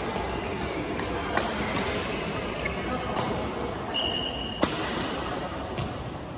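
Badminton rally in a large hall: sharp racket strikes on the shuttlecock every second or two, the loudest about four and a half seconds in, with a short squeak just before it, over echoing background chatter.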